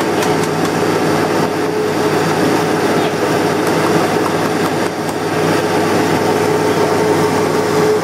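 Upright bag vacuum cleaner's motor running steadily, with a constant hum over its airflow noise.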